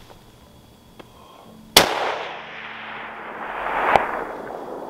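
A .300 Weatherby Magnum rifle shot about two seconds in, its report ringing out and echoing off the surrounding slopes. About two seconds later comes a second, sharp crack: the sound of the bullet striking the elk at 550 yards, arriving back across the valley.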